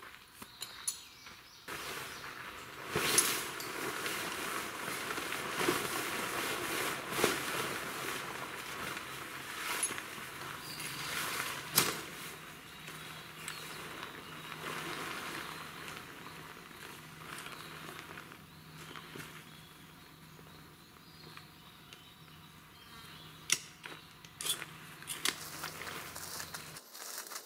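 Nylon tent fabric rustling and crumpling, with sharp clicks and snaps of tent poles, as a DOD Kinoko dome tent is taken down. The rustling is busiest in the first half and grows fainter later, with a few sharp snaps near the end.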